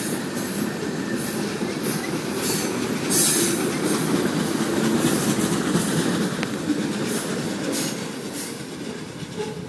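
Freight train cars rolling past: a steady rumble and rattle of steel wheels on the rails, fading away over the last few seconds as the last car, a boxcar, goes by.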